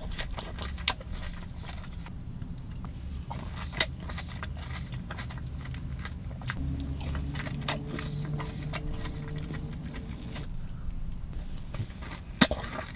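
Close-miked chewing and biting of grass: irregular crunches and wet mouth clicks, a few of them sharper and louder, over a low steady hum.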